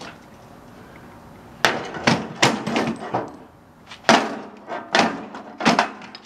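A run of about eight sharp knocks and clanks in an uneven rhythm, starting about a second and a half in. They come from parts of a scrapped microwave being knocked about on a concrete floor.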